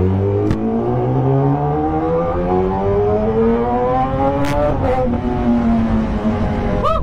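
Kawasaki ZX-10R's inline-four engine accelerating, its pitch climbing steadily for about four and a half seconds, then falling as the throttle eases off. A quick sharp rise and fall in pitch comes near the end.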